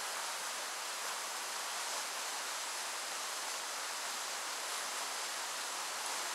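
Whitewater rapids rushing steadily: an unbroken hiss of fast water pouring over rocks.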